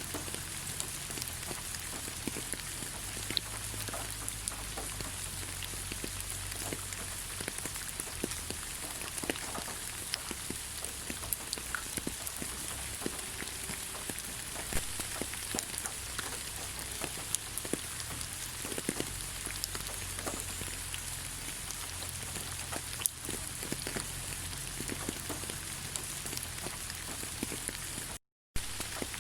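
Steady rain falling on leaves: an even hiss with many individual drops tapping irregularly. The sound cuts out completely for a moment near the end.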